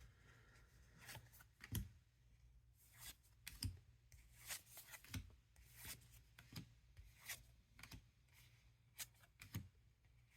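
Faint, soft slides and clicks of paper trading cards being handled and flipped through one at a time, about one or two a second.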